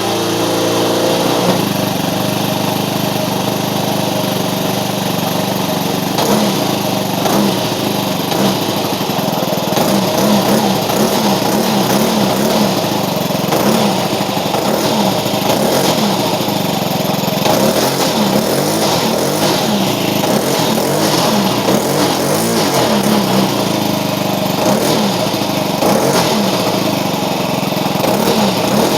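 O.S. FS-91 Surpass II four-stroke glow engine turning a 15x6 two-blade propeller, running steadily, its pitch wavering up and down repeatedly. The uneven run was later traced by the owner to the high-speed needle valve turning on its own.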